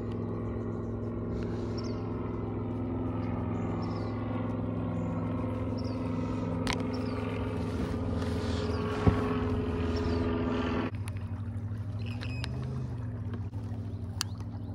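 Bow-mounted MotorGuide Xi3 electric trolling motor running steadily, a hum made of several steady tones. About 11 seconds in, its higher tones cut off suddenly and a lower hum carries on. A sharp click comes about 9 seconds in.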